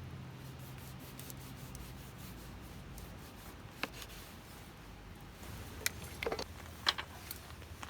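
Faint low hum fading out, then a handful of light clicks and small knocks, a cluster of them near the end.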